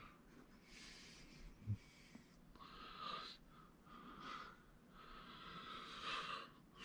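Faint breathing of a person close to the microphone, several soft breaths about a second long each, with one short soft knock about a second and a half in.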